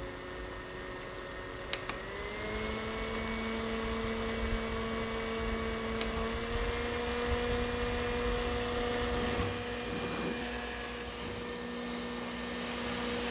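Small electric fan motor of a mini humidifier fan running with a steady whine. About two seconds in, just after a click, its pitch steps up as it shifts to a higher speed.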